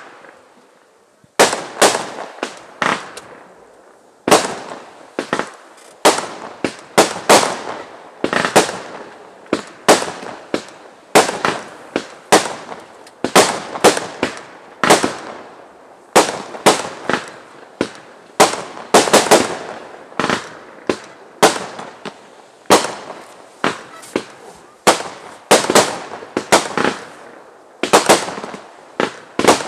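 Fireworks display: a long string of aerial shell bursts, sharp bangs coming one or two a second, each trailing off briefly.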